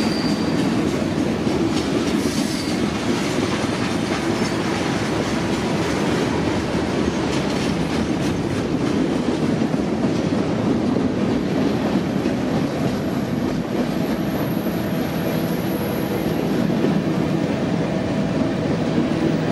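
Freight cars of a passing freight train (autoracks, tank cars and bulkhead flatcars) rolling by close at hand: a loud, steady rolling rumble of steel wheels on the rails, with faint repeated clicks.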